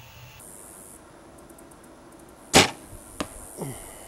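A bow shot: a loud, sharp release about two and a half seconds in, then about half a second later a fainter crack as the arrow strikes a 3D deer target 40 yards away.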